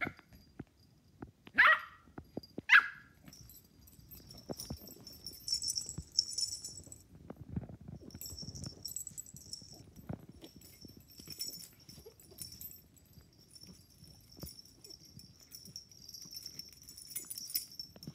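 Two short barks from a beagle close together about two seconds in, followed by faint jingling of collar tags and scuffling as a cat and dogs wrestle on a rug.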